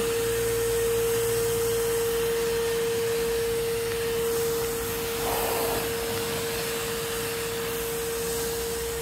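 DeWalt DXV38S wet and dry vacuum running in blow mode, air rushing out of the hose, with a steady whine held at one pitch.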